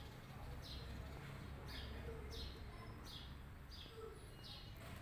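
A bird chirping over and over, short falling high notes a little more than once a second, over a low steady background rumble.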